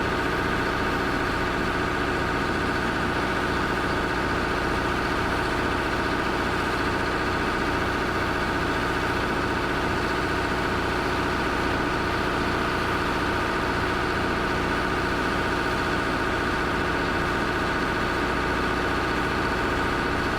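Heavy-equipment engine running steadily at constant speed, a continuous hum with a steady whine on top and no change in revs.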